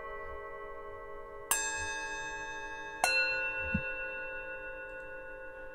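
Bell tones struck twice, about a second and a half apart. Each strike rings on and slowly fades over the lingering ring of an earlier one, in the meditative style of a singing bowl.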